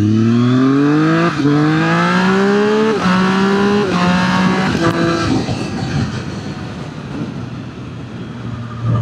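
Triumph Street Triple 765 RS motorcycle's inline-triple engine accelerating hard through the gears: the revs climb and drop sharply with three quick upshifts in the first four seconds. It then settles into quieter wind and road noise at speed.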